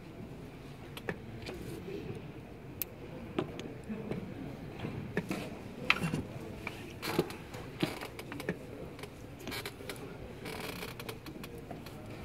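Wooden chess pieces being set down on a board and chess clock buttons being pressed during blitz play: scattered, irregular sharp clicks and knocks over a low background murmur.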